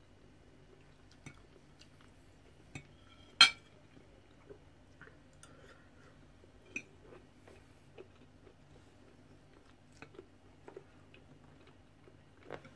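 Metal knife and fork clinking and scraping on a ceramic dinner plate, with one loud ringing clink about three and a half seconds in and lighter taps scattered through. Soft chewing between the clinks.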